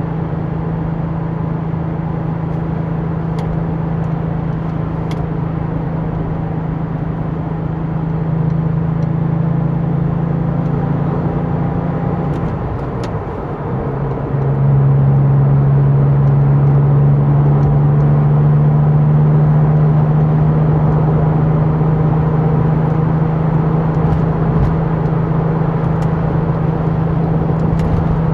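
Porsche 911 996 Turbo's twin-turbo flat-six running steadily while driving. About halfway through, the engine note dips and wavers briefly, then comes back louder and holds steady.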